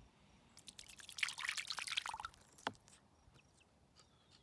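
Gosling splashing in a shallow tub of water: a flurry of small splashes and drips starting about a second in and lasting a little over a second, then a single sharp drip or tap before it goes quiet.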